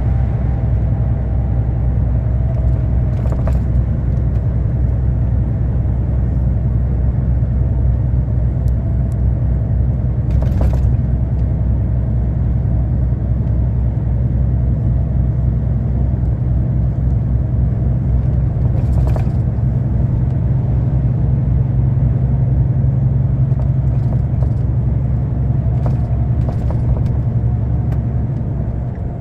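Heavy truck driving steadily at road speed, heard from inside the cab: a constant low diesel engine drone with road rumble, and a few faint clicks.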